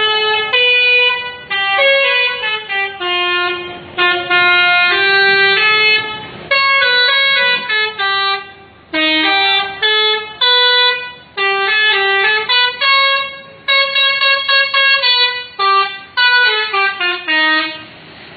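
Bus 'telolet' musical horn playing a melody: a run of loud, stepped horn notes in short phrases, stopping shortly before the end.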